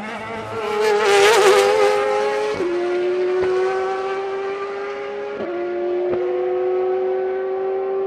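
Endurance race car passing close at speed, loudest about a second and a half in. Its engine note then climbs steadily as it accelerates away, dropping sharply at each upshift: about two and a half seconds in, and again around five and a half and six seconds.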